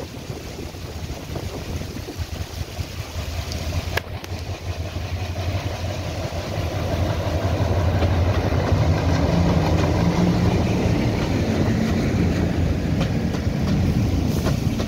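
A line of WDM-3D diesel-electric locomotives approaching and rolling past close by. Their engines run with a steady low drone that grows louder about halfway through as the locomotives draw level. There is a single sharp click a few seconds in.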